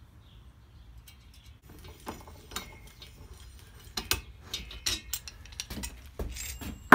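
C-clamp valve spring compressor being backed off a Volkswagen cylinder head, its screw and jaws making irregular metallic ticks and clicks as the valve spring is released onto its fitted keepers. The clicks grow sharper in the second half, ending in one loud knock as the clamp comes away.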